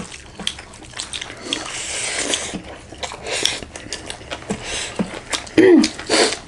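Close-miked eating sounds: chewing and lip-smacking of rice, daal and curry, many wet mouth clicks and short squelches, with a brief voiced murmur near the end.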